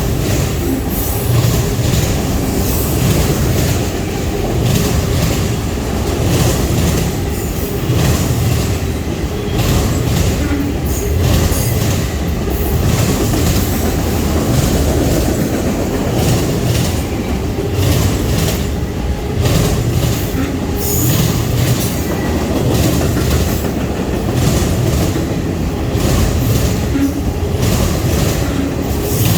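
A train rolling past close by: a steady, loud rumble of wheels on rails with repeated clacks as the wheels cross rail joints.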